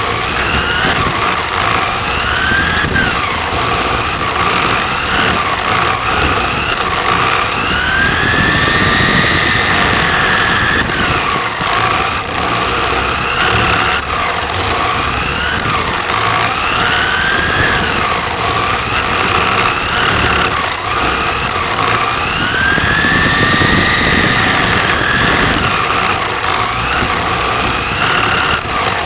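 Onboard sound of a Team Associated TC4 1/10-scale RC touring car racing: its electric motor and gears whine, gliding up and down in pitch with speed, over a steady rush of drivetrain and tyre noise.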